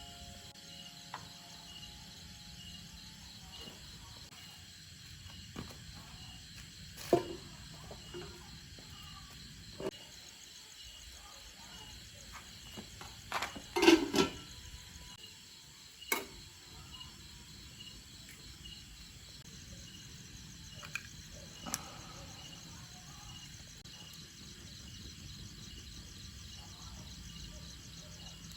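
Insects, crickets, chirping steadily in a high pulsing chorus, with a few scattered knocks and clatters of work. The loudest is a brief cluster of knocks about halfway through.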